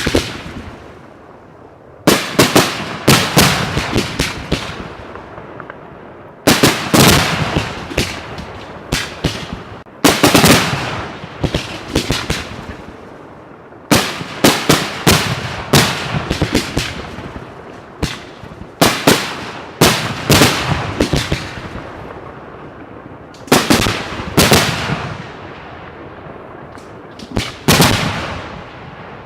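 Professional fireworks display: aerial shells bursting in rapid volleys of loud, sharp bangs every few seconds, each volley dying away in echo.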